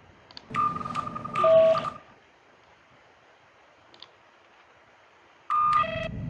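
Electronic computer-interface beeps from the lighting control software while it connects: a steady high beep stepping down to a lower tone about half a second in, and the same high-then-low beep pair again near the end as the control screen comes online, when a low hum starts up under it. A faint click around four seconds in.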